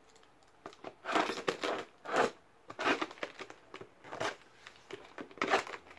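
Small scissors cutting into a parcel's packaging, with crackling and crinkling of the wrapping and tape in short, uneven spells.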